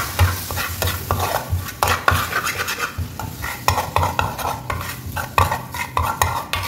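Metal spatula stirring and scraping a wet onion-and-chilli masala around a frying pan in quick irregular strokes, the masala sizzling with a splash of water just added.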